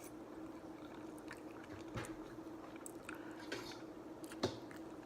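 Chewing and wet mouth sounds of someone eating a creamy shrimp Alfredo pasta, with scattered short smacks and clicks, the sharpest about four and a half seconds in. A faint steady hum runs underneath.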